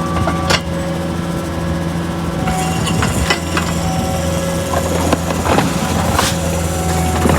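Engine of an auger rig running steadily, with scattered knocks and clanks from about two and a half seconds in as the coring bit works against loose rock in a post hole.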